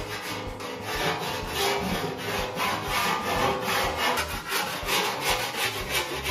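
Hand file being stroked repeatedly along the edge of a sheet-steel panel clamped in a vise: a steady rhythm of rasping strokes.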